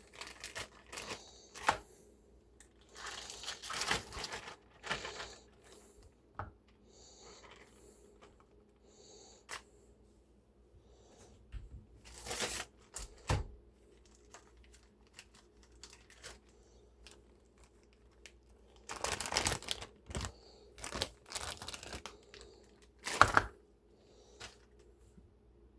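Irregular crinkling, rustling and tearing of things being handled, broken by sharp clicks and knocks; the loudest knock comes near the end.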